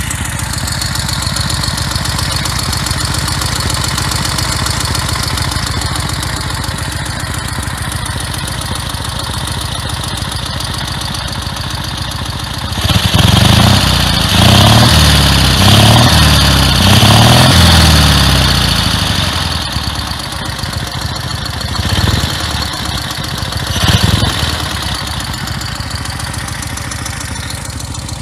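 1940 BMW R12's side-valve flat-twin engine idling, then revved in a run of about four blips about halfway through, followed by two shorter blips before settling back to a steady idle.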